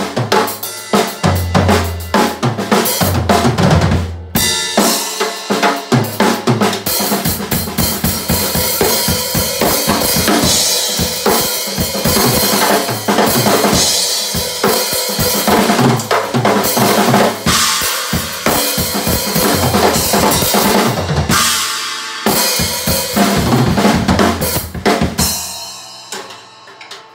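Acoustic drum kit played solo without backing music: bass drum, snare and cymbals struck in dense fills, with a steady cymbal wash from about four seconds in. The playing stops about a second and a half before the end, leaving the cymbals ringing out.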